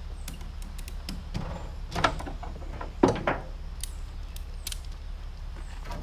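Several knocks and clunks of objects being moved around, the loudest about two seconds and three seconds in, with small clicks between, over a steady low hum.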